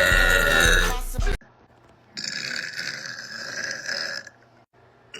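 Loud music with a heavy beat stops abruptly about a second in. Then a woman lets out one long belch, lasting about two seconds.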